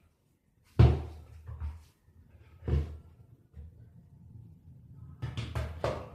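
Knocks and taps from handling a portable air conditioner during a repair: two loud knocks about two seconds apart, then a quick run of lighter clicks and taps near the end.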